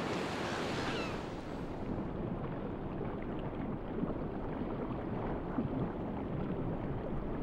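Sea-surface ambience of wind and lapping water. About two seconds in it gives way to a duller, muffled underwater rumble.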